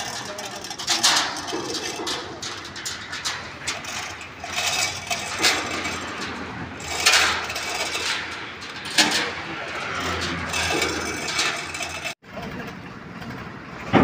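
Irregular metal knocks, clanks and scrapes from work on a steel water tank on a tractor trailer, over a low engine hum that swells about ten seconds in. The sound cuts out for an instant near the end.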